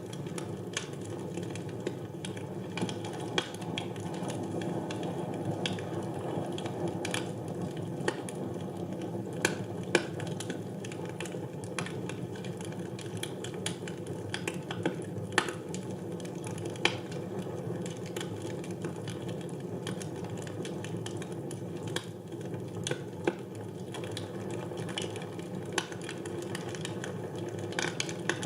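Wood fire burning in a fireplace: a steady low rush of flames with irregular sharp crackles and pops from the burning logs, one every second or so.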